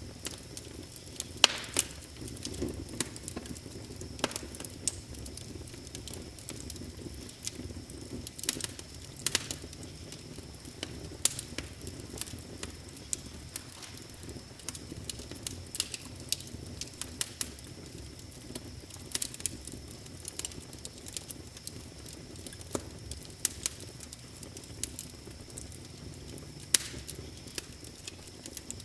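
Wood fire burning in a fireplace, crackling with frequent sharp irregular pops over a steady low hiss of the flames.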